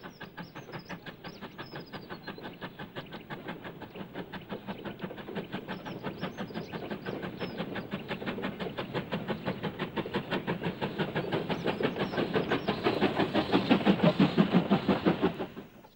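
SNCB Type 29 steam locomotive chuffing at an even beat of about four exhaust beats a second as it approaches, growing louder and loudest shortly before it cuts off suddenly near the end.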